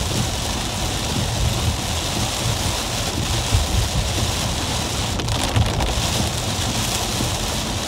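Heavy rain falling on a car's roof and windshield, heard from inside the cabin, over the low steady rumble of the car driving on a wet road.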